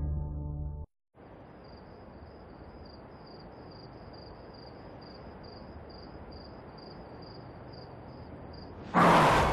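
Held low tones of a music sting cut off just under a second in. Then a steady faint hiss with an insect chirping in a high, even pulse about two or three times a second. Near the end a sudden loud boom hits.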